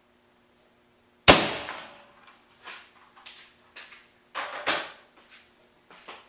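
A single sharp crack about a second in as a Daisy Powerline 880S pump air rifle fires a .177 pellet into a water-filled plastic juice jug, with the report and the pellet's hit arriving together. A string of softer irregular taps and rustles follows.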